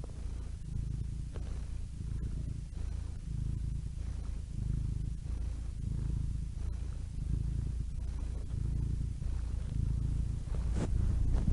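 Domestic cat purring close up, a steady low rumble that swells and fades in a slow, even rhythm. A brief sharp noise comes near the end.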